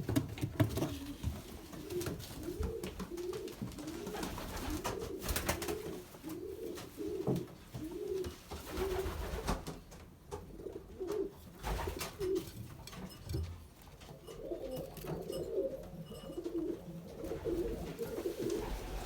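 Racing pigeons in a breeding loft cooing over and over, several birds overlapping, with a few light knocks in between.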